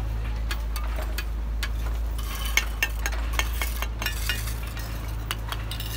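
Bricklaying: steel trowels tapping and scraping on bricks and mortar, and bricks clinking as they are set, heard as a run of sharp clicks and knocks that is busiest in the middle, over a steady low hum.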